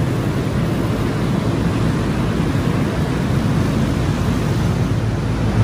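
Steady, loud rushing of air and fans in a walk-in refrigerated cooler: the constant noise of the refrigeration blowers, deepest in the low range, with no distinct knocks or changes.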